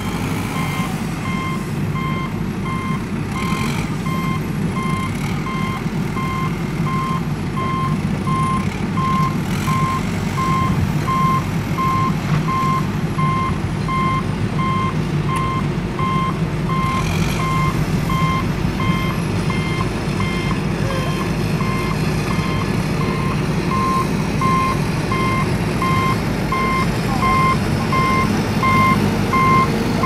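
Truck reversing alarm beeping at an even pace, about two beeps a second, over the steady running of a heavy vehicle's engine.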